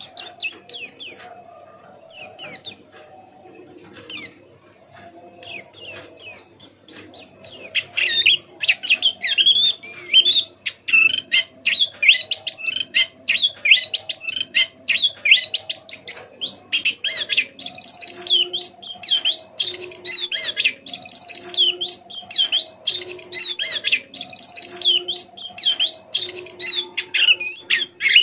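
Pleci (white-eye) singing a fine, rapid twittering chatter of quick high chirps. The song breaks off for about three seconds shortly after the start, then runs dense and nearly without pause.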